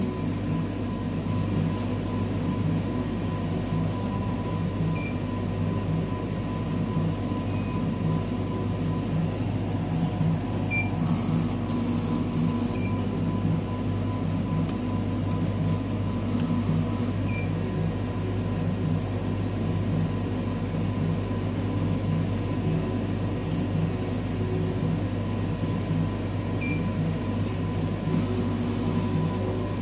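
Cornley K-Lite 3 electrolyte analyser running a sample measurement: a steady machine hum with a regular low pulsing, and a few faint short high beeps.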